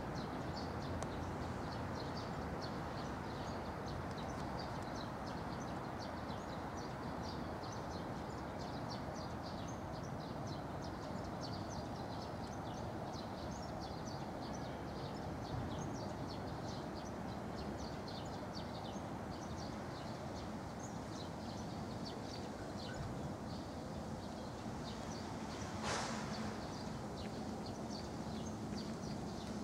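Outdoor ambience: many small birds chirping over a steady low background rumble. One sharp click comes near the end, and a low steady hum joins in over the last several seconds.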